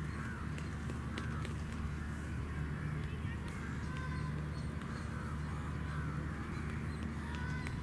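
Crows cawing repeatedly over indistinct distant voices and a steady low hum.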